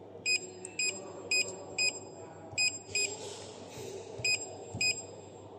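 Short, high electronic beeps from a DWIN touch display's built-in buzzer, one for each press on the screen: eight beeps in quick, uneven succession, as when keying in on a touch keypad.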